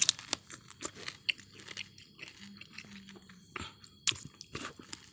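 A person biting and chewing a lime: an irregular run of short wet mouth clicks and chewing noises.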